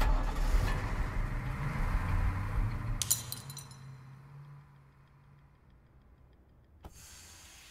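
A heavy vehicle's engine rumbling as it pulls away, with a sudden clink and scatter of glass about three seconds in. Afterwards the rumble fades to a faint hum.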